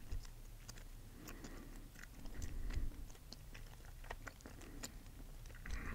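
Chewing gum close to a microphone: quiet, irregular clicks and smacks.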